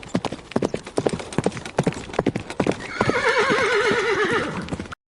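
Horse hooves clip-clopping at a walking pace, then a horse whinnying in one long wavering call about three seconds in. It cuts off suddenly near the end.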